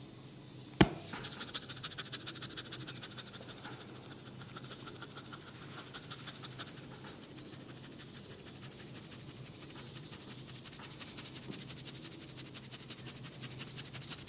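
Fingers scratching and rubbing through hair on the scalp in rapid, even strokes, several a second. About a second in there is a single sharp snap, the loudest sound.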